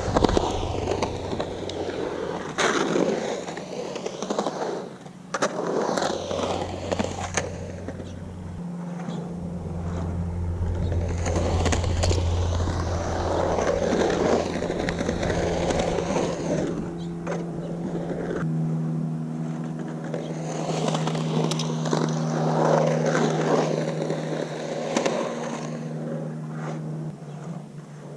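Skateboard on hard 97a Santa Cruz Slime Balls urethane wheels rolling and carving around a concrete bowl. The rolling roar swells and fades as the board goes up and down the transitions, with a few sharp clacks in the first few seconds. The wheels' hard urethane makes a noticeably hard-sounding roll on the concrete.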